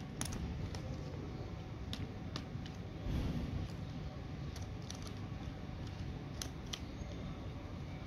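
Spring-loaded plastic clothes pegs clicking as they are clipped onto and pulled off a plastic basket: a string of light, irregular snaps over a low steady rumble that swells briefly about three seconds in.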